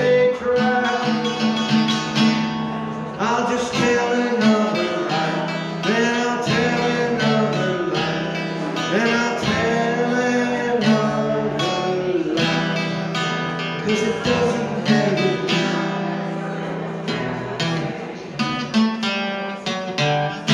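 Live solo music: an archtop guitar strummed and picked, with a man's voice singing along.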